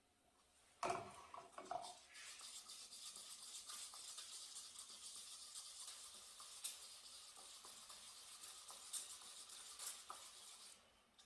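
A paintbrush working water-based paint with a steady, scratchy brushing sound, after a few light knocks about a second in.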